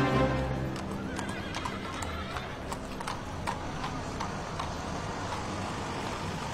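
Horse hooves clip-clopping on a street, irregular strikes over several seconds, with a brief wavering whinny about a second in. Background music fades out during the first second.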